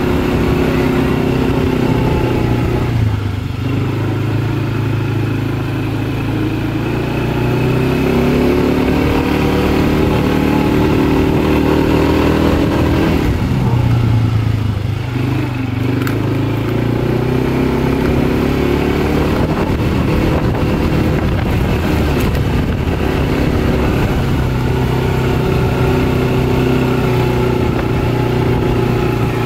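Kymco MXU 250 quad's single-cylinder four-stroke engine running under throttle on a dirt track. The engine note falls about three seconds in and again around the middle as the throttle is eased, then rises again as it picks up speed.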